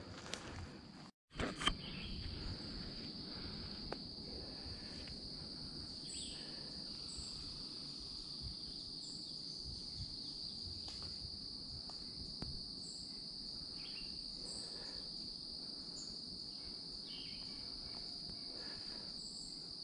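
Insects trilling in summer woodland: a steady, high-pitched, unbroken buzz, with faint short chirps above it every second or two. The sound cuts out briefly about a second in.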